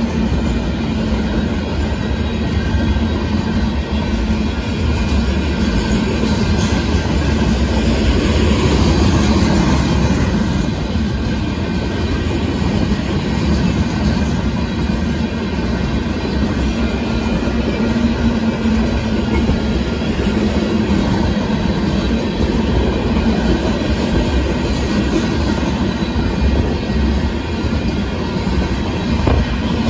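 Union Pacific freight train of hopper cars rolling past, the steady noise of its wheels running over the rails.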